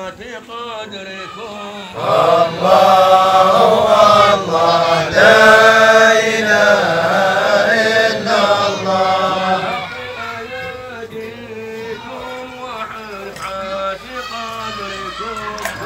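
Men's voices chanting Sufi dhikr at a hadra. The chant grows louder about two seconds in and eases back after about ten seconds.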